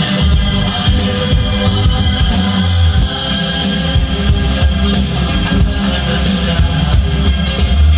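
Recorded pop music with vocals and a strong bass line, played back from cassette tape on a Pioneer CT-W803RS double cassette deck.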